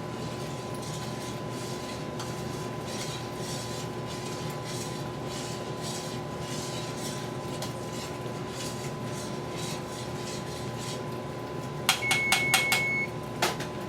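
Faint clinks and scrapes of kitchen utensils over a steady hum, then near the end a kitchen timer beeping repeatedly, signalling that the one-minute boil of the chocolate mixture is up.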